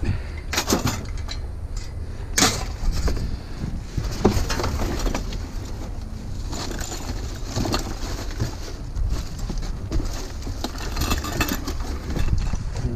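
Scattered knocks, clicks and clatter from scrap light fixtures being handled and pulled apart, over a steady low rumble.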